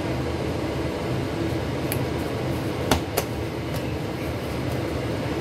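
Steady low hum of running kitchen machinery, with two sharp knocks close together about three seconds in.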